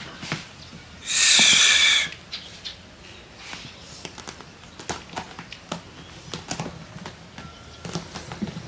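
A cat hissing once, a steady hiss about a second long, among light scattered taps and scuffling clicks.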